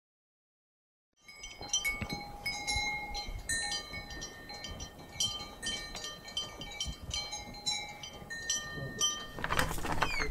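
Wind chimes tinkling: many light, irregular metal strikes ringing at several different pitches. They start about a second in, after silence. A burst of noise comes near the end.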